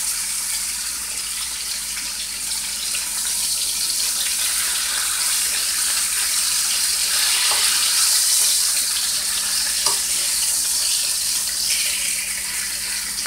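Floured boneless beef short ribs sizzling steadily in hot oil in a skillet as they are browned and turned, with a couple of faint clicks partway through.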